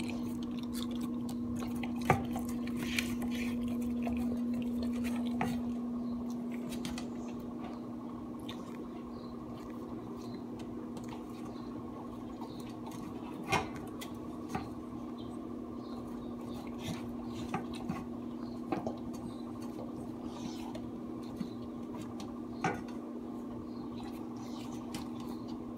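A Basenji–Pharaoh Hound mix licking and nosing a stainless steel food bowl, the bowl clinking and clanking on the tile floor every few seconds, over a steady low hum.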